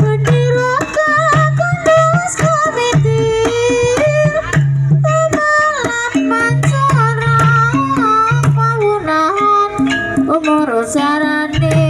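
Javanese gamelan music for an ebeg dance: quick, dense struck percussion over repeated low drum strokes, with a wavering melody line on top.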